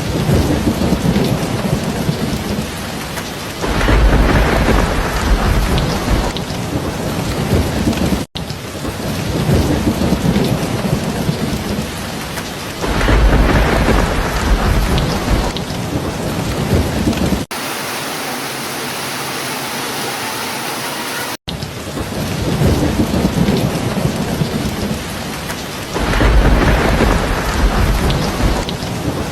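Steady heavy rain with rolls of thunder: three deep rumbles swell and fade over the rain, a few seconds apart at first, then later. Around two-thirds of the way through, a few seconds of steadier, hissier rain with no rumble, with abrupt cuts either side.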